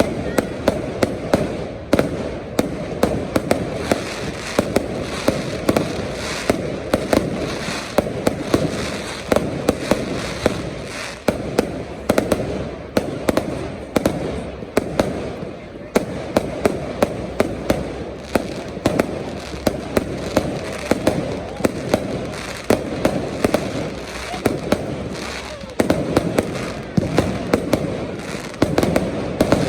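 Fireworks display going off nonstop: a dense, rapid run of sharp bangs and cracks over a continuous low rumble of explosions.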